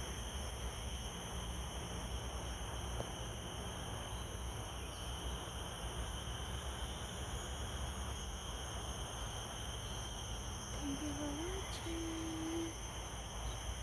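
A steady chorus of crickets keeps up a continuous high-pitched trilling at several pitches over a low rumble. About eleven seconds in comes a faint low call that rises and then holds for about a second.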